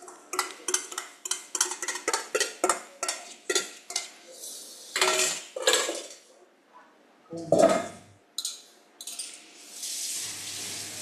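Metal spoon scraping and tapping against a stainless steel mixing bowl, about three clinks a second, as sauce is scraped out of it. A few louder clatters of kitchenware follow, and a steady hiss comes in near the end.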